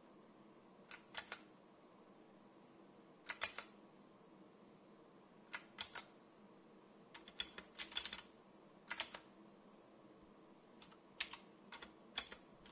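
Clicky blue mechanical key switches on a Zienstar G696 60% keyboard, pressed in short groups of two or three sharp clicks every second or two, with a quicker run of presses about halfway through.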